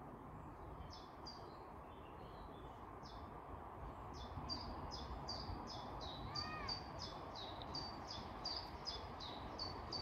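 A small songbird singing a long run of short, high notes, sparse at first and then coming about three a second from a few seconds in, with one lower arching call in the middle. Underneath is a faint, steady outdoor background rumble.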